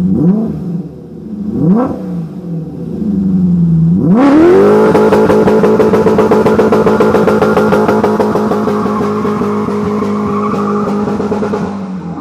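BMW E30's swapped-in M60 V8 blipped sharply twice, then revved up hard about four seconds in and held at high revs for a burnout, the rear tyres spinning and smoking as the car pulls away.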